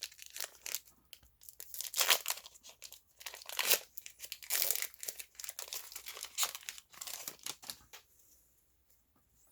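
Foil wrapper of a Pokémon Battle Styles booster pack being torn open and crinkled: a run of crackling rustles that stops about eight seconds in.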